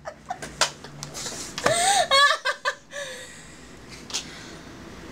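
A woman laughing: short breathy bursts, then one loud, high, wavering laugh about two seconds in, trailing off into quieter breaths.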